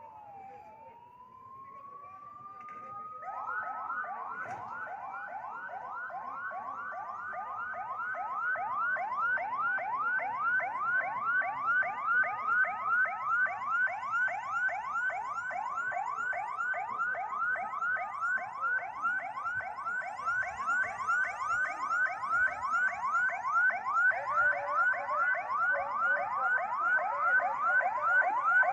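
Emergency vehicle sirens. One slowly rises and falls in a wail, repeating about every five seconds. A second joins about three seconds in with a fast, rapidly repeating yelp, and both grow louder as the ambulance and fire engines move onto the ground.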